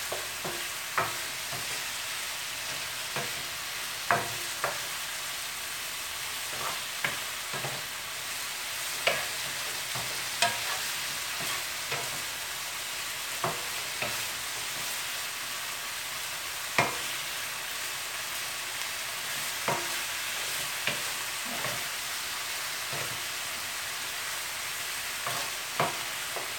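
Chicken pieces sizzling in a hot skillet, with a steady frying hiss. A wooden spoon knocks and scrapes against the pan at irregular moments, every second or two, as the pieces are stirred.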